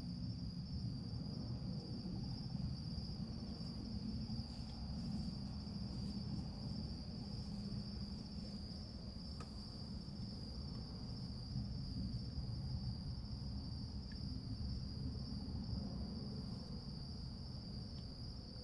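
An insect chorus trilling in one unbroken high-pitched drone, over a low, steady rumble.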